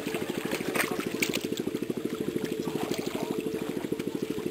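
A small engine running steadily with a fast, even throb, with a few splashes in shallow muddy water.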